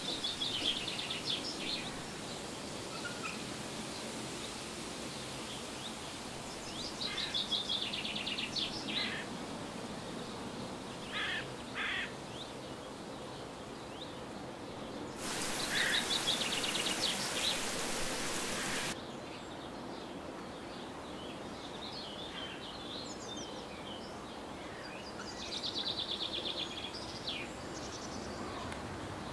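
Outdoor ambience of birds chirping in short high trills every few seconds over a steady background hiss. About halfway through, a louder hiss lasts about three and a half seconds and cuts off abruptly.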